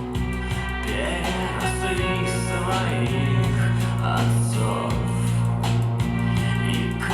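Recorded music played through Fostex P1000K full-range drivers in quarter-wave resonator speaker cabinets: a song passage without sung words, with sustained bass notes under guitar-like instruments.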